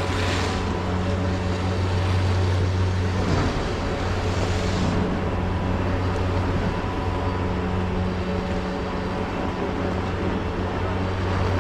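The drive machinery of a POMA Challenger detachable quad chairlift running steadily: a deep electric-motor hum with a fainter whine above it and a haze of wind noise, the hum dropping out briefly about three seconds in.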